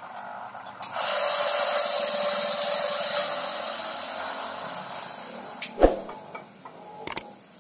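Electric coffee grinder grinding roasted coffee beans: the motor starts about a second in, runs loud and steady for about two seconds, then fades away over the next two. A few sharp knocks follow near the end.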